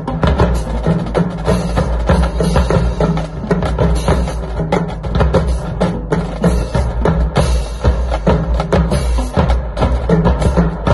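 Marching drumline playing a cadence: snare drums and tenor drums in dense, rapid stick strokes over a steady low drum pulse, with marching cymbals crashing now and then.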